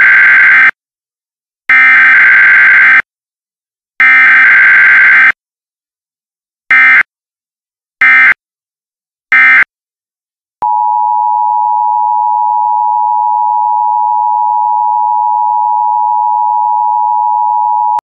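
Emergency Alert System tones: three digital SAME header data bursts about a second long each, then three much shorter data bursts, then the steady two-tone EAS attention signal held for about seven and a half seconds.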